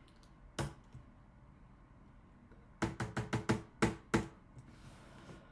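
Typing on a computer keyboard: one keystroke, then a quick run of about seven keystrokes in just over a second.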